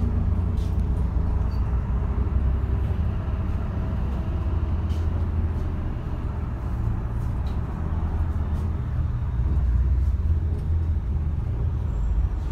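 Steady low rumble of a moving road vehicle's engine and tyre noise, heard from inside the vehicle while it drives through city traffic.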